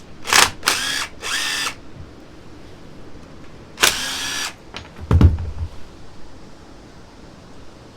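A handheld power tool, such as a driver or power ratchet, runs in four short bursts while taking fasteners off an ATV engine: three quick ones, then one more a few seconds later. A dull low thump follows about five seconds in.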